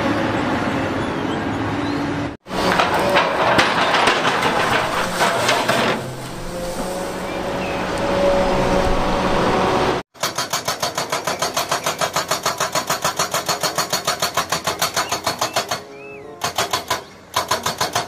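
Heavy excavator engine running while it works. About ten seconds in, a hydraulic rock breaker on an excavator starts hammering rock in a fast, even rhythm of about five blows a second. It stops briefly and starts again near the end.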